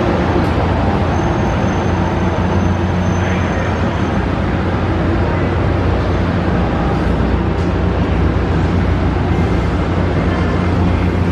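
Steady running rumble of an Amtrak Coast Starlight passenger train in motion, with a low hum underneath. A thin high tone sounds faintly from about one to four seconds in.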